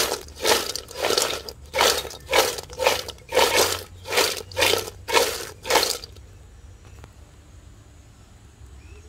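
Crisp fried cassava (tapioca) chips rattling and crunching against a large aluminium bowl as they are tossed to coat them in salt and chilli powder, about two tosses a second, stopping about six seconds in.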